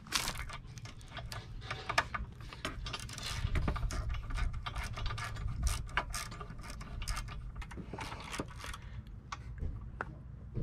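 Small hand ratchet with a T40 Torx bit on a short extension, clicking in irregular runs as mounting screws are driven in by hand.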